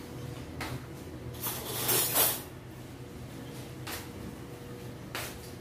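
Pan of kangkong and egg soup simmering on a gas stove under a glass lid: a faint steady hum with a few short hissing surges, the loudest about two seconds in.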